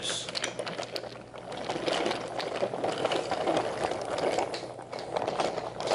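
Wooden toy train, a hand-pushed engine and a string of freight cars, rolling along wooden track: a steady rattling rumble of wooden wheels with small clicks at the track joints, cutting off at the end.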